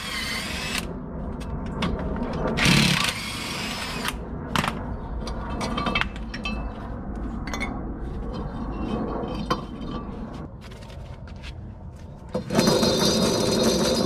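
Cordless power tool run in short bursts to back out the caliper bracket bolts on a Lexus IS300 front hub, with clicks and knocks of parts being handled in between. Near the end a louder steady sound with a high ringing tone starts.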